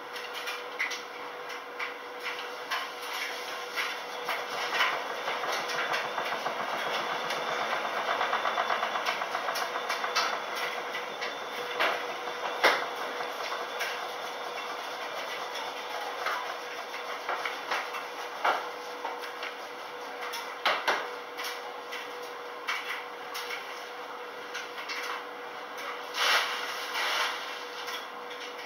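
Speed Queen front-loading washer tumbling a load in its wash cycle: a steady motor hum under the churn of clothes in the turning drum, with scattered clicks and knocks. It runs louder for several seconds near the middle.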